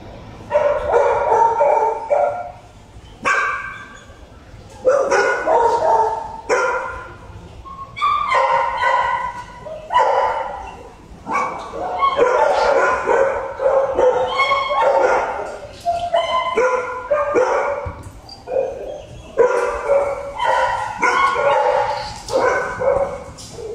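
A dog barking and baying over and over, drawn-out pitched calls about a second long with short gaps between them.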